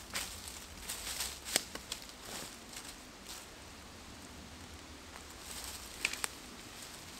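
Dry beech leaf litter rustling and crackling as a stick rakes it aside to clear the ground, in irregular strokes. There is a quieter spell in the middle, then a few sharp clicks near the end.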